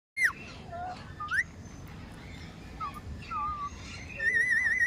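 Indian ringneck parrot whistling: a sharp falling whistle, then a rising one, a few short notes, and a loud wavering, trilled whistle near the end.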